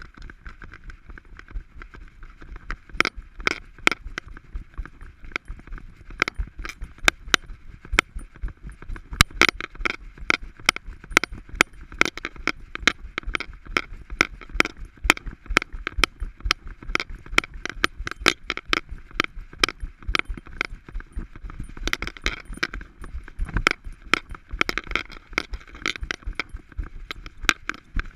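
Rapid, irregular clicking and jangling from an Alaskan Malamute's harness and the action camera mounted on it, jolted with each stride as the dog walks. The clicks grow denser about three seconds in.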